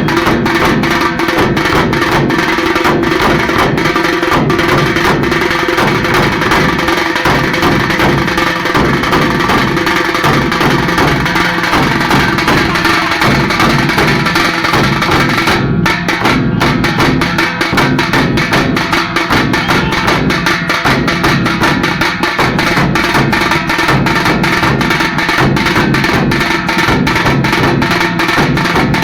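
A group of halgi frame drums, played with sticks, beating a fast, loud, continuous rhythm of dense sharp strikes.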